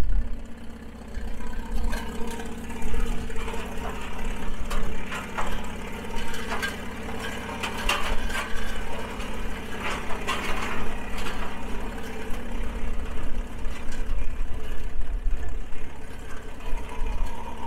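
Engine of an early steel-wheeled Huber tractor running steadily as the tractor is driven over dirt, with a stretch of mechanical clatter in the middle.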